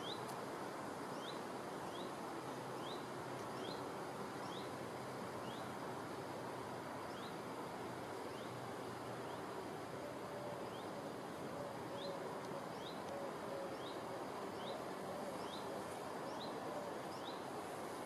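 Outdoor nature ambience: a steady background hiss, with a bird repeating a short, high chirp about once every two-thirds of a second in two runs, pausing between them about halfway through. A faint insect buzz comes in around the middle.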